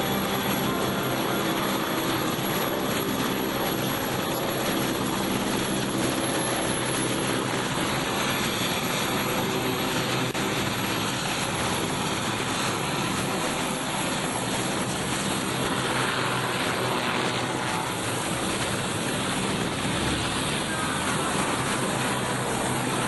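Westland Sea King helicopter turning on the ground, its twin turbines and five-blade main rotor running at a steady level.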